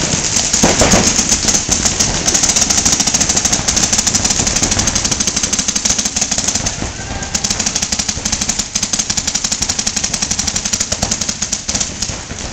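Paintball markers firing in rapid strings, many overlapping shots a second, with a short lull a little past the middle.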